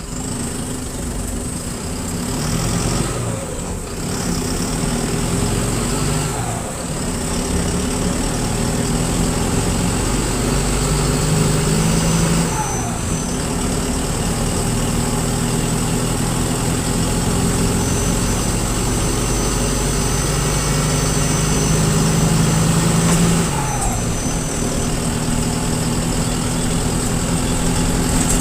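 Mercedes-Benz OF-1721 bus's diesel engine pulling under load, its note climbing and then breaking off briefly about four times as the gears change. The exhaust is holed and leaking.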